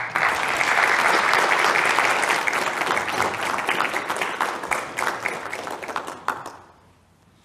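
Church congregation applauding: a burst of clapping that starts suddenly, holds for about six seconds, then thins out and dies away.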